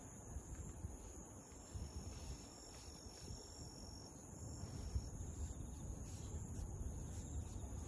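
Insects trilling steadily at a high pitch, with a faint low rumble underneath.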